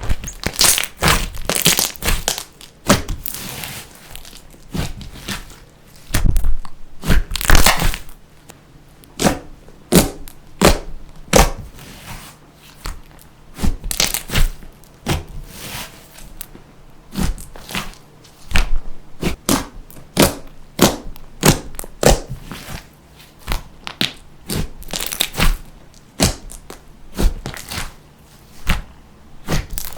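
Slime being kneaded and squeezed by hand, giving irregular sticky pops and crackles in quick clusters.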